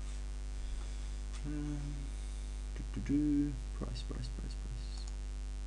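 Steady electrical mains hum on the microphone. A man's voice hums twice briefly, about one and a half seconds in and again about three seconds in, and a few light computer-mouse clicks sound near the middle.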